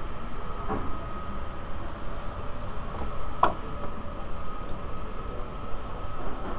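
Steady background hum with a faint high whine, and two short metallic clicks, one just under a second in and a louder one about three and a half seconds in, from the wiper linkage rods and ball joints being handled.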